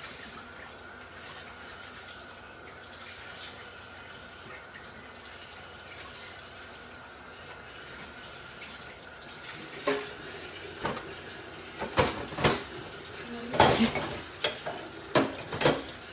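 Kitchen sink tap running in a steady hiss. From about ten seconds in, a series of sharp knocks and clinks of dishes and utensils being handled.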